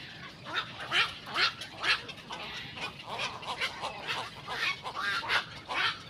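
Black-crowned night herons calling in a nesting colony: a run of short calls, several a second. The three loudest come about half a second apart, a second or so in.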